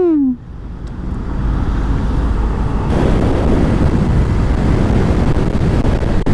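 Honda motorcycle underway in traffic: engine and wind noise dip briefly at the start, then build and hold as the bike picks up speed.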